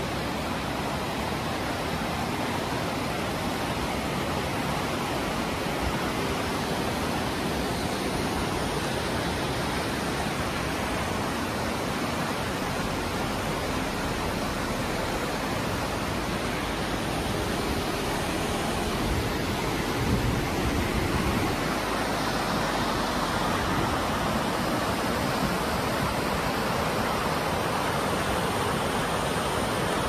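Steady rushing of whitewater rapids on the Prüm, water tumbling over boulders in a continuous loud hiss.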